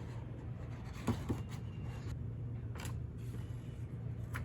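Faint handling sounds of cardstock and a glue bottle as glue is put on the paper: a few soft rustles and light taps over a steady low hum.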